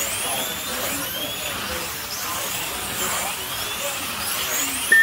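Electric slot cars racing round a banked track, their small motors whining up and down in pitch as the cars pass and brake into the turns. A short, high beep sounds just before the end.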